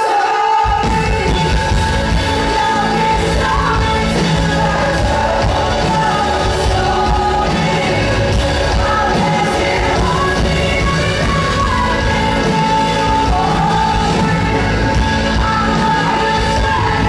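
Live band playing a song in a large hall: electric guitar, bass and drums under long, bending vocal lines. The low end drops out briefly at the start, and the bass and drums come back in just under a second in.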